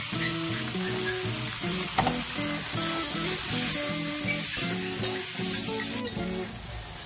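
Cubed pork sizzling in hot oil in a wok while a metal spatula stirs it, clinking and scraping against the pan several times. The sizzle drops off somewhat about six seconds in.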